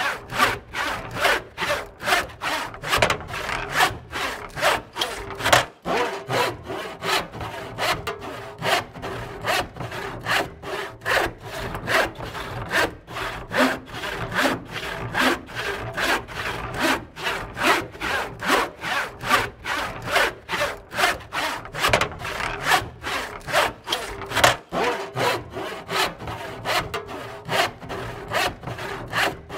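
A saw cutting through wood by hand, in quick even back-and-forth strokes of about three a second.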